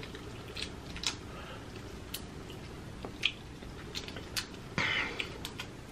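A sauce-coated boiled prawn being peeled by hand: scattered sharp clicks and crackles of shell breaking and wet, squishy pulling. A louder, half-second rustle comes about five seconds in.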